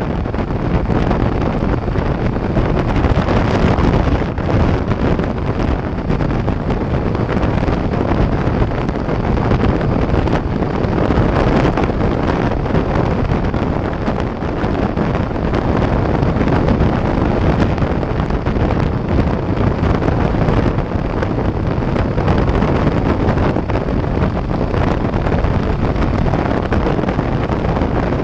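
Steady, heavy wind noise buffeting a GoPro microphone on a Harley-Davidson motorcycle riding at highway speed.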